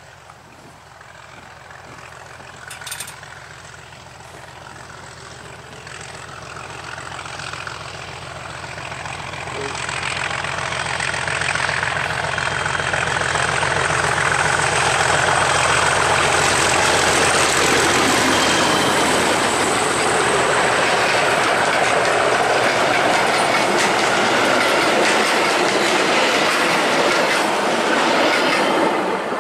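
Diesel locomotive hauling a train of coaches, its engine working under power and growing steadily louder as it approaches, then passing close by with the engine and the coaches' wheels on the rails at full loudness through the second half. A short sharp knock is heard about three seconds in.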